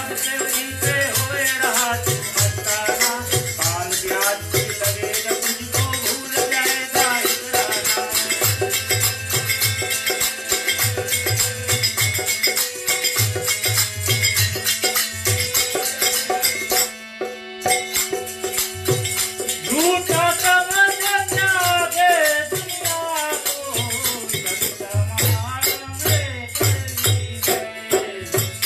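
Live music of male singing with harmonium, a dholak drum beating out a steady rhythm, and fast jingling hand percussion. The percussion drops out briefly about two-thirds of the way through, and the singing comes back strongly soon after.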